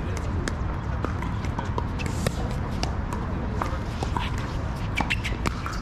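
Pickleball rally: sharp, irregular pops of paddles striking the hard plastic ball and the ball bouncing on the court, over a steady low rumble.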